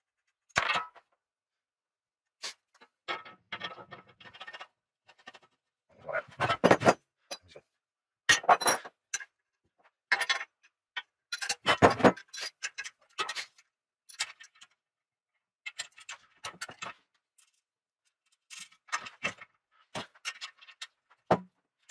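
Steel parts being handled and fitted together on a workbench: irregular clinks, knocks and rattles as a gas ring burner is set into a black steel stand and fixed in place, with the loudest knocks about halfway through.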